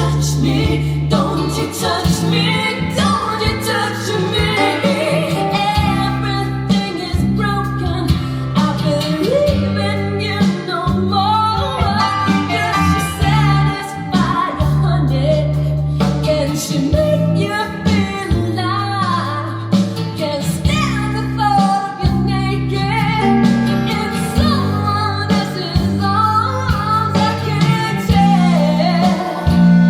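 Pop song with a female lead vocal, bass and guitar, played at a loud level through Linn 360 hi-fi loudspeakers and heard in the room.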